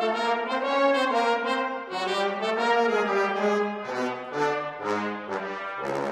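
Brass dectet of trumpets, horns, trombones and tuba playing in harmony; lower brass comes in about four seconds in, and the notes turn shorter and more separate.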